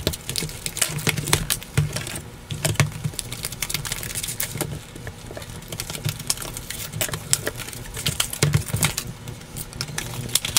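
Stiff clear plastic clamshell packaging being pried open and handled, crackling and clicking irregularly, with a few dull bumps against a wooden table.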